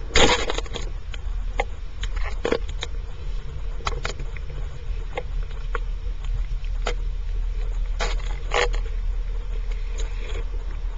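Underwater sound close to a rocky seabed: a steady low rumble with scattered sharp clicks and knocks. A louder, rushing burst comes just after the start and another about eight seconds in.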